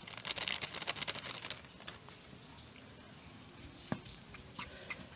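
A sheet of paper crinkling as dry powder is shaken off it into a bowl for about a second and a half, then a few light clicks of a metal spoon against the bowl.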